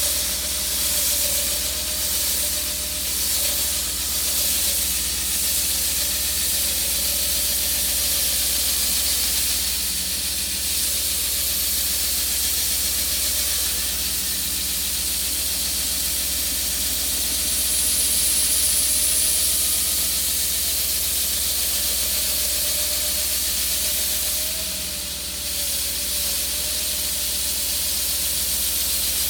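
Concrete saw cutting through thick concrete: a steady, loud hiss of the blade in the cut, with a faint wavering hum underneath.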